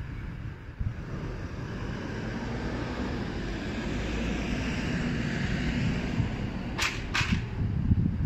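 Steady outdoor wind noise and low rumble, with a hiss that swells through the middle. Two short sharp clicks come close together near the end.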